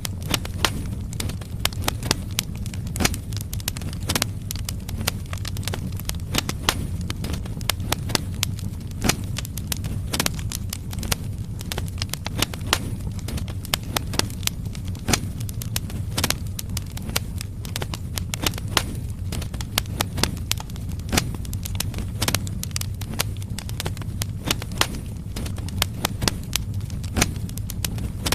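Firewood logs burning in a fireplace: frequent, irregular sharp crackles and pops over a steady low rumble of the flames.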